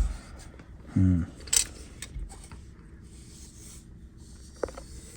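A steel helmet being turned over and handled: a few light knocks and faint scrapes, with a short murmured hum from the handler about a second in.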